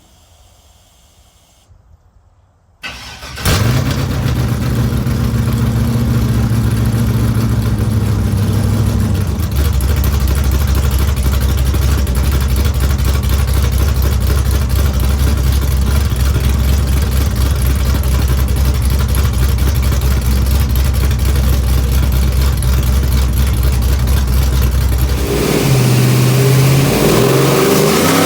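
Cold start of a 5.3-litre LS V8 with a BTR LS1 Stage 3 cam: the engine cranks and fires about three seconds in and runs at a fast idle, which drops to a lower, steady idle around ten seconds in. Near the end the throttle is blipped and the revs rise and fall.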